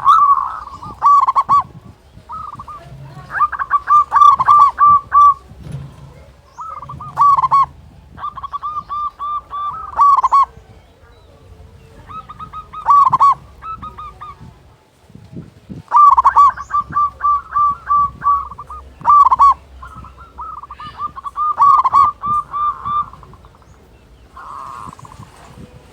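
Zebra dove (perkutut) cooing its song over and over, each phrase a quick run of repeated notes, with short pauses between phrases.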